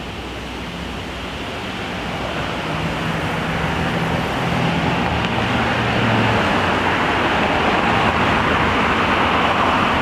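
Road traffic: cars passing with tyre and engine noise, growing louder over the first six seconds and then staying loud. Recorded through a Rode VideoMic with its foam windscreen and the high-pass filter off.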